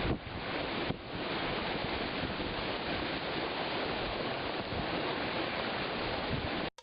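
Steady rushing noise of wind on the microphone and water aboard a sailboat under way, cut off abruptly near the end.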